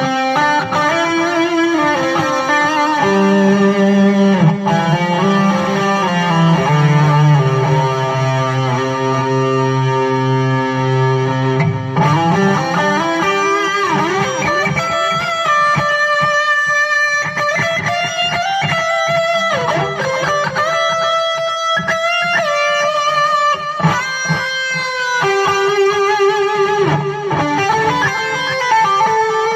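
Electric guitar played through an amplifier on a lead (solo) tone with some drive, playing melodic lines with long sustained notes.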